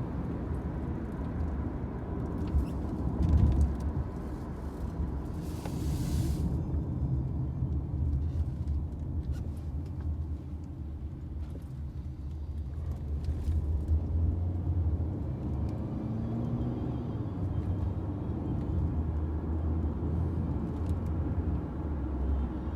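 Taxi driving, heard from inside the car: a steady low rumble of engine and road noise, with a few light clicks and a brief hiss about six seconds in.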